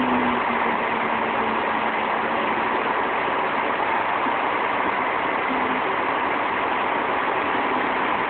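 Heavy engine of the concrete truck at a pour running steadily, a constant rumbling noise with a faint held hum.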